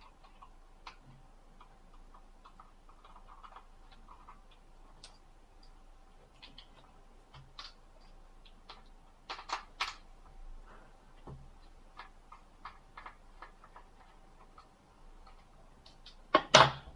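Small irregular clicks and taps of a disassembled mobile phone's plastic housing parts and small hand tools being handled. There are a few louder clicks about halfway through and a loud, short cluster of clicks near the end.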